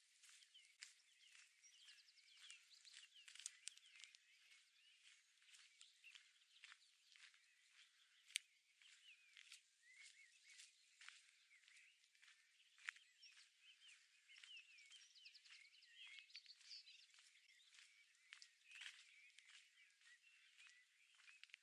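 Faint mixed songbird chorus: several small birds singing and chirping at once in a steady overlapping stream of trills and warbles, with a few sharp clicks standing out.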